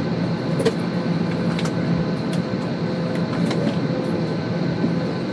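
Steady cabin noise inside a commercial airliner taxiing to the runway: a constant engine and air-conditioning hum with a low drone, dotted with small scattered clicks and rattles.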